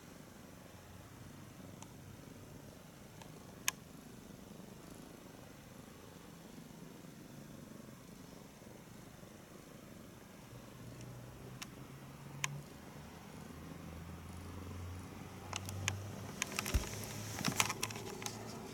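Domestic cat purring softly. Two single sharp clicks and, near the end, a cluster of crackling clicks.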